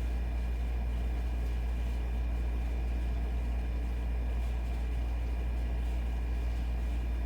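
Air conditioner running steadily: a constant low hum with a faint steady high whine over it.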